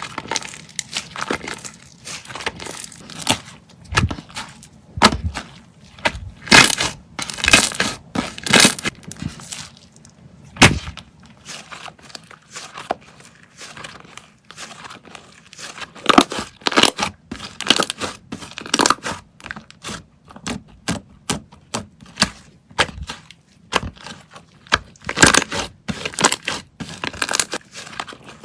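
Slime being squished and pressed by hand, making irregular sharp pops and crackles. The pops come in clusters with quieter gaps between them, and the loudest come about a quarter of the way in.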